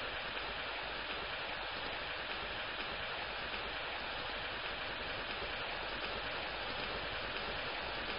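Rain sound effect: a steady, even hiss at a constant level.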